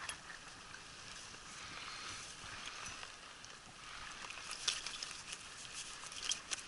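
Mountain river water running steadily past, with a handful of sharp little clicks or ticks over the last two seconds.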